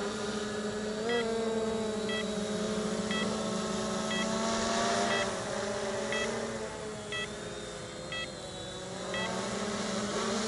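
Cheerson CX-20 quadcopter flying overhead, its four brushless motors and propellers giving a steady hum whose pitch shifts slightly as it is steered. A short electronic beep repeats about once a second.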